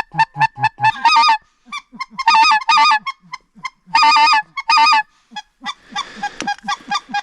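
Goose honking: a fast, even run of short clucks, then several longer, drawn-out honks, then more clucks near the end.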